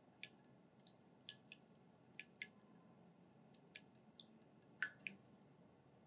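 Wire balloon whisk stirring a little liquid in a small glass bowl: its wires tick lightly and irregularly against the glass, with soft wet squishes and one louder click a little under five seconds in.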